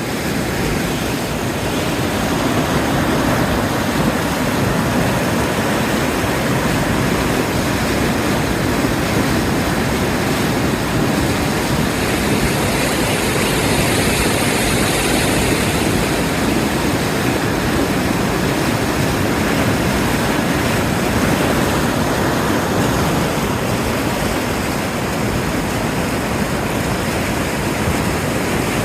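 Fast-flowing water rushing steadily, a constant loud roar with no breaks.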